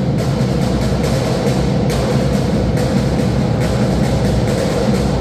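Drums beating a steady rhythm, about two strokes a second, over the loud, steady din of an arena crowd.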